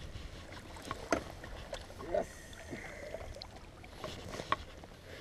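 A landing net is worked in the water beside an aluminium fishing boat to land a bass: a few short knocks and clicks over a low steady rumble of water and wind.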